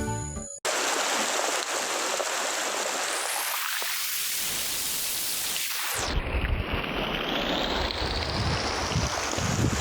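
Heavy rain falling steadily. About six seconds in the sound shifts and an uneven low rumble of wind buffeting the microphone joins it.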